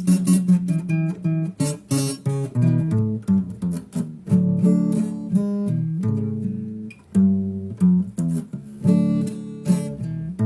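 Solo acoustic guitar playing a melody of single plucked notes mixed with strummed chords, each note sounding sharply and ringing out.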